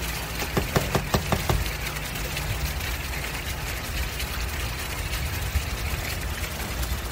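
A steady low hum with a hiss over it, machine-like. A quick run of light clicks and taps comes about half a second to a second and a half in.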